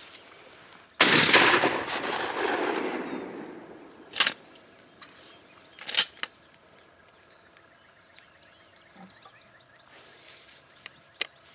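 A shotgun shot about a second in, its report rolling away over two to three seconds, followed by two shorter, quieter sharp sounds a couple of seconds apart.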